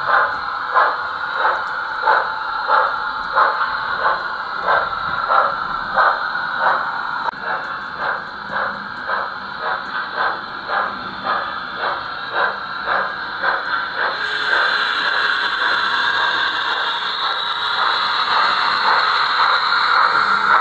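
Steam exhaust chuffs from the ESU LokSound 4 XL sound decoder in a Märklin T 18 gauge 1 model steam locomotive, played through its speaker as it runs, a steady beat of about one and a half chuffs a second. About two-thirds of the way in the sound grows louder and hissier and the chuffs blur together as the locomotive comes closer.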